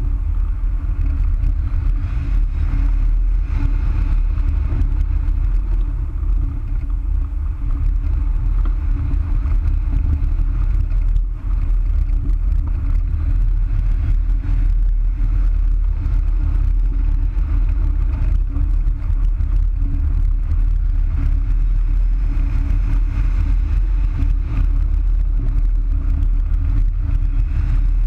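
Loud, steady wind rushing and buffeting over a camera microphone mounted on a hang glider's wing in flight, with a brief lull about eleven seconds in.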